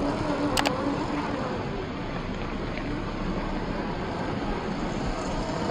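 Small electric motor and gears of a scale RC crawler pickup whining softly as it climbs over rocks, its pitch wavering with the throttle, over a steady background rush. A single sharp click about half a second in.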